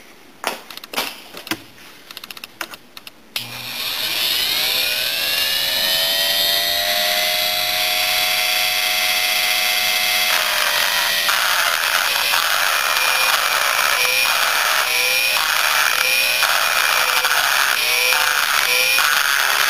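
A few light clicks, then a high-speed rotary tool with a carbide burr spins up about three seconds in, its whine rising and then holding steady. From about halfway it grinds in short repeated bursts as the burr cuts casting flaws out of a Yamaha Blaster two-stroke cylinder's exhaust port.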